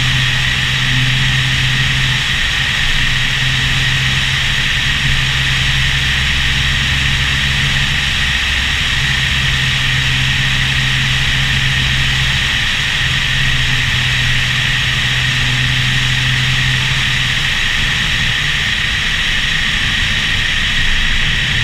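Steady rush of wind over a camera mounted on the roof of a moving Porsche 911 Turbo S, with the low drone of its twin-turbo flat-six underneath. The engine note drops away and comes back a few times.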